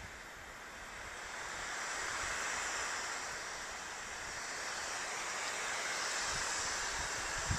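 M83 smoke grenade hissing steadily as it burns and pours out white smoke, the hiss slowly swelling and easing. A few soft low thumps near the end.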